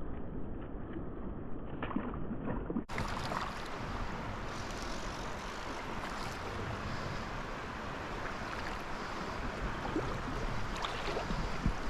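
Steady rush of flowing creek water with scattered small clicks; the sound turns suddenly brighter about three seconds in.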